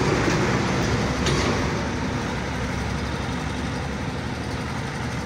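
Road traffic passing: the engines and tyre noise of cars and motorcycles, growing quieter over the first two seconds and then steady.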